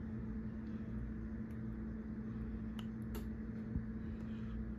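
Steady low electrical hum, holding one pitch, with a few faint light clicks scattered through it.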